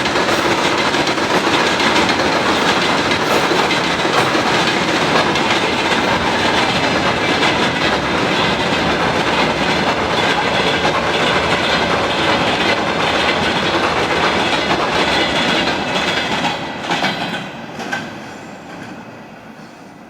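Freight train rolling past, wheels clattering over the rail joints. The noise holds steady, then fades away over the last few seconds as the end of the train passes.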